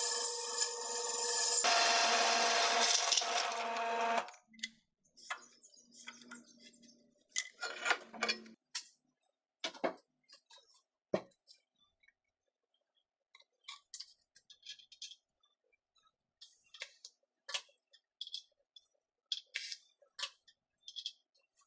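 A drill press motor runs with a steady whine, and about two seconds in a compressed-air blow gun gives a two-second blast of hiss clearing the steel chips from the drilled hole; both stop about four seconds in. After that come only scattered small clicks and knocks of the steel tube being wiped and handled on the bench.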